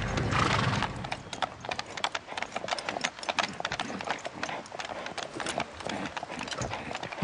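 Horse hooves clip-clopping, a run of irregular hoof strikes on hard ground, after a short rushing noise at the start.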